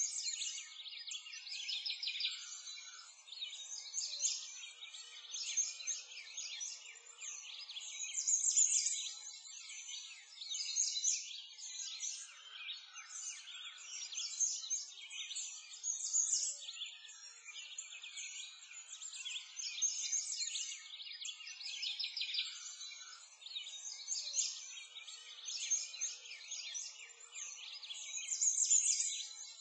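Many small birds chirping and singing together in a dense, unbroken high-pitched chorus.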